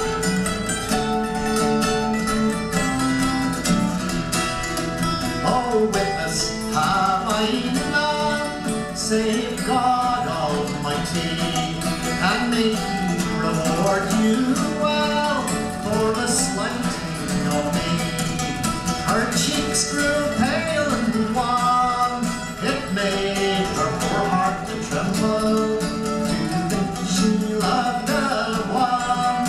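Live acoustic folk instrumental break: guitar and other plucked strings play the melody over a steady accompaniment, with no singing.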